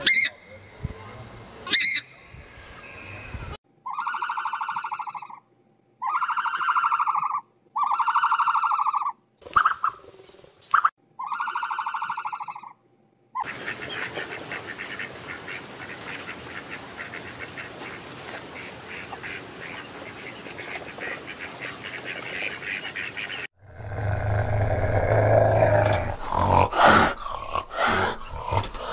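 A swamphen gives two sharp honking calls about two seconds apart. Then come five even, pitched calls of about a second each and a stretch of steady hiss. Near the end a fishing cat growls loudly.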